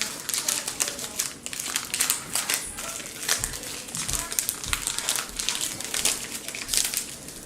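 Foil Pokémon TCG booster-pack wrapper crinkling as it is handled and opened, in a dense run of irregular crackles.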